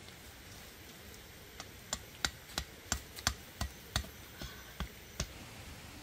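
Knife chopping at a wooden stick: about a dozen sharp knocks, two to three a second, starting about a second and a half in and stopping a little after five seconds.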